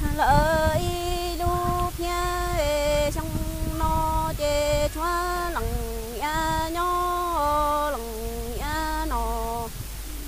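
A woman singing Hmong kwv txhiaj, unaccompanied sung poetry. She holds long notes that step between pitches and slide down at the end of each phrase, and stops shortly before the end.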